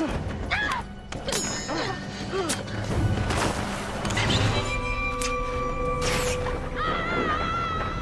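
Film soundtrack with dramatic music and effects: booms and hits with short voice sounds over them in the first seconds, then held sustained notes and, near the end, a wavering sung vocal line.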